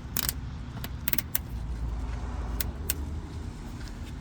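Scattered sharp clicks and light rattling of small clips being snapped onto a line in a car's engine bay by hand, about half a dozen clicks over a low rumble.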